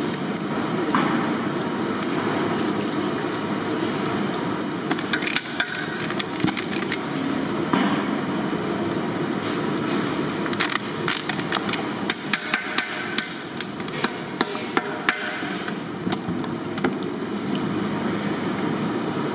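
Repeated sharp knocks like hammering or chopping, a few early on and then in quick runs through the second half, over a steady background din.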